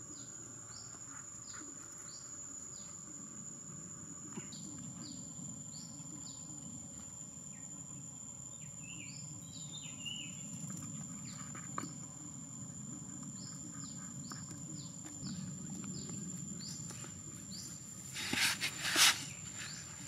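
Outdoor ambience of a high, steady insect drone with many short, falling bird chirps repeating over it. Near the end comes a brief loud rustling swish, twice in quick succession.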